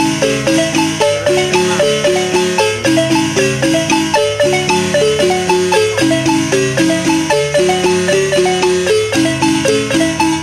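Large wooden marimba played with mallets by three players: a son, with a quick, steady stream of struck notes over a lower bass line.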